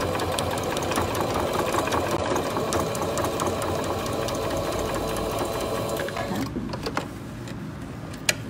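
Domestic electric sewing machine stitching a seam, running steadily at a fast even rate, then stopping about six seconds in. A few clicks and fabric handling follow near the end.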